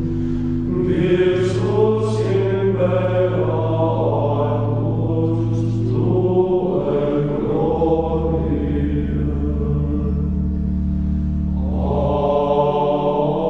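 Choral chant: voices singing slowly in sustained tones over a held low bass note, which drops lower about halfway through.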